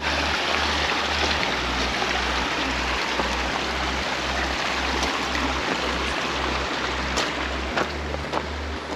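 Strong wind blasting across the microphone as a steady rushing noise, with a low pulsing bass beat from background music underneath.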